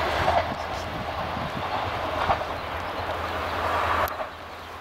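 Diesel regional train approaching along the line: a steady engine and rail rumble with a couple of sharp clicks. It drops away suddenly about four seconds in.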